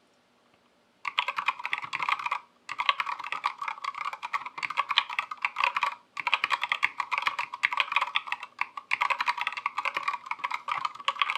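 Typing sound test on a Skyloong GK64 hot-swap mechanical keyboard with C3 Equalz Tangerine 62g linear switches, built stock with no lube or mods. Fast, continuous clacking keystrokes start about a second in, pausing briefly three times.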